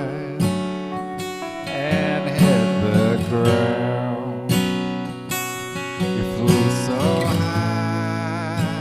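Acoustic guitar strummed in steady chords, an instrumental passage after the last sung line of the song.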